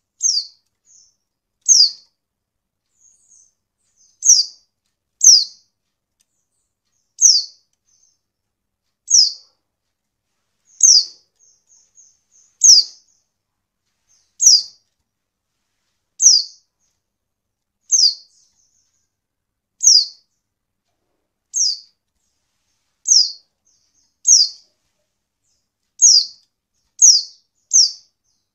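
Female white-eye (pleci) calling: a short, high note that falls in pitch, repeated steadily about every one and a half seconds, with a few faint softer notes in between.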